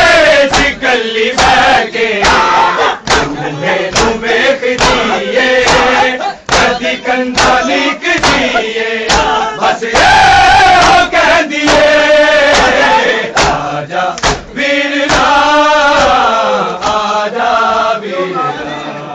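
A crowd of men chanting a Muharram noha (lament) in unison. Sharp chest-beating (matam) hand slaps keep a beat about twice a second.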